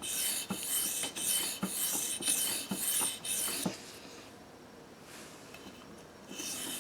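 A VG10 knife blade stroked across the 1000-grit side of a wet synthetic whetstone: a gritty scrape repeated about twice a second, pausing for a couple of seconds and starting again near the end.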